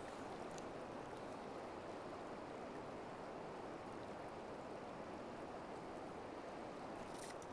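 River water flowing over a rocky bed: a faint, steady rush.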